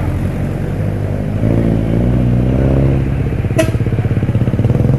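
Engines of road vehicles passing close by, a bus and then an SUV, running steadily with an engine note that rises about a second and a half in. A single sharp click about three and a half seconds in.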